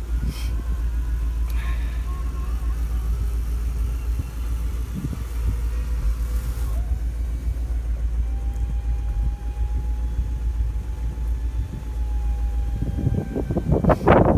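The power convertible-top mechanism of a 1959 Lincoln running as its switch is held and the rear deck lid rises, its motor giving a steady whine that steps up in pitch about seven seconds in, over a low rumble.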